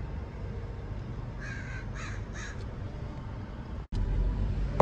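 A crow cawing three times in quick succession over a steady low rumble of traffic. Near the end the sound cuts out for an instant, and the rumble comes back louder.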